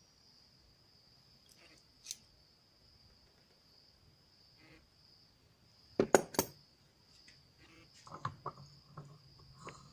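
Sharp metallic clinks of hand tools and alternator parts being handled and set down: a single click about two seconds in, a loud cluster of two or three clanks about six seconds in, then lighter clicks near the end. Crickets drone steadily in the background.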